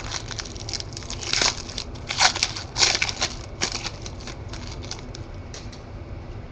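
Foil wrapper of a Panini Select football card pack being torn open and pulled off the cards: a run of crisp rustles and tears for about four seconds, then it quiets.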